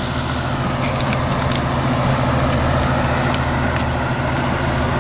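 A large vehicle's engine idling at a steady pitch: an even, low hum with a few faint ticks.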